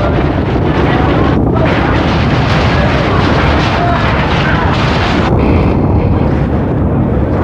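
Loud, continuous rumbling and rattling noise of an earthquake shaking a building, picked up by a camcorder microphone.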